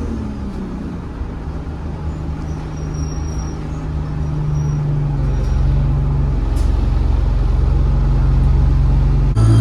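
ADL Enviro 200 bus's diesel engine, heard from on board, running low and steady with a deep drone while the bus is held or moving slowly. There are a few faint short high beeps and a brief air hiss. Near the end the engine suddenly picks up, its revs and turbo whistle rising as the bus pulls away.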